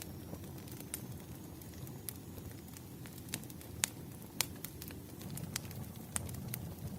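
Burning firewood crackling: a steady low rumble with irregular sharp pops, the two loudest near the middle.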